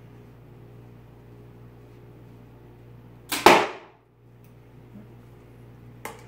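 Compound bow shot once, about three seconds in: a loud sudden snap of the released string and limbs, with a second hit a split second later as the arrow strikes the target. A small click near the end.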